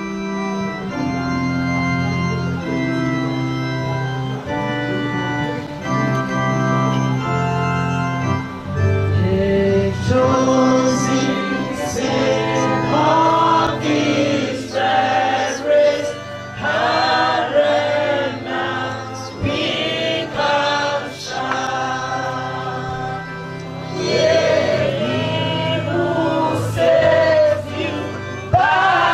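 Electric organ playing hymn chords, then a congregation joins in singing the hymn from about ten seconds in, with the organ accompanying.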